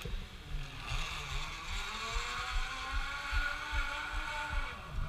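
Zip-line trolley pulleys rolling along a steel cable: a whine of several tones that builds about a second in, holds steady, and fades away near the end. Underneath, a low rumble of wind on the microphone.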